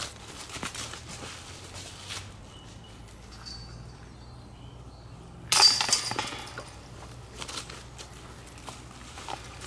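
A disc golf putt hitting the chains of a metal disc golf basket: a sudden metallic clatter and jingle about halfway through, ringing out for about a second.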